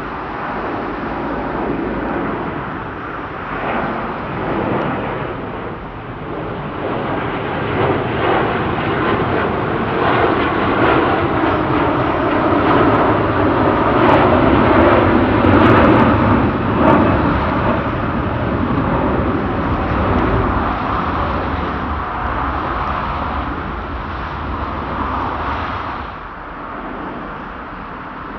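Jet airliner engines at takeoff thrust as the plane departs, a broad rumbling noise that grows louder to a peak about halfway through and then fades.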